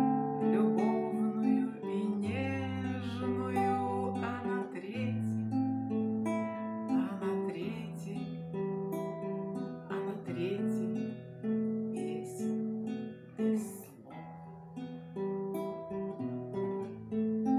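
Acoustic guitar playing an instrumental passage, picked and strummed notes changing every second or so.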